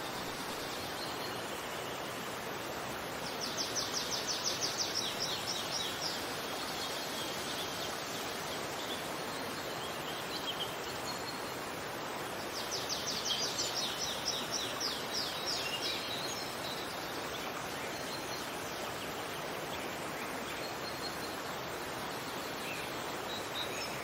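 Steady rushing of running water, with a small songbird singing a fast, high trill twice, a few seconds in and again about halfway through, and faint chirps in between.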